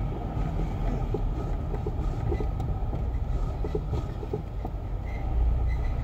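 Peugeot 307 1.6 on the move, heard from inside the cabin: a steady low road and engine rumble with a faint, steady high whistle and a few light ticks. This is the unexplained whistling noise that appears while driving.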